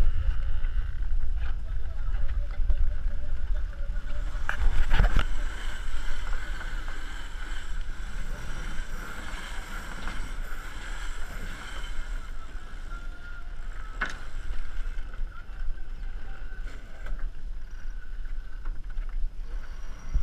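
Racing catamaran under way: wind buffeting the microphone and water rushing past the hulls, with a steady hum through the middle. A few sharp knocks from ropes and deck fittings cut through, around five seconds in and again near fourteen seconds.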